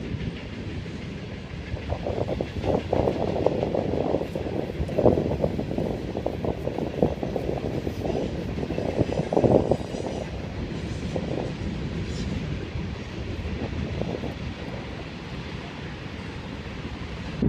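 A train rolling past, its wheels clattering over the rails in an ongoing, uneven rattle that swells louder a few times.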